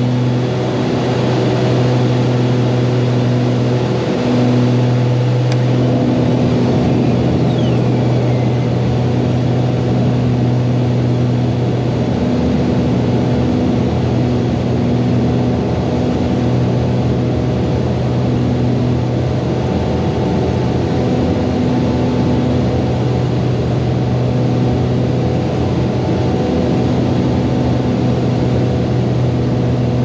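Beechcraft Baron's twin six-cylinder piston engines and propellers droning steadily inside the cabin, with a slow waver that comes and goes every few seconds.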